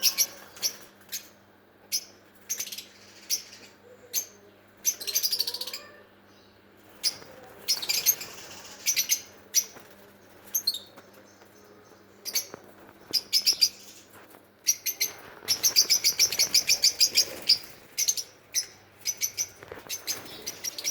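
Lovebirds chirping: short, sharp, high-pitched chirps, some single and some in fast rapid-fire runs, with the longest run of rapid chirps about three quarters of the way through.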